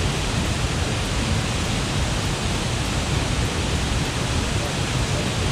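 Waterfall rushing: a steady, dense roar of falling water, heaviest in the low end.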